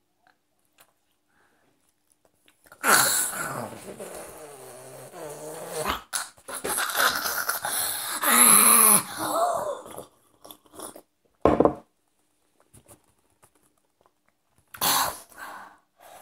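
A boy gagging and retching in disgust at a mouthful of tomato. The loud, hoarse noises start about three seconds in and last several seconds, followed by a couple of short retches.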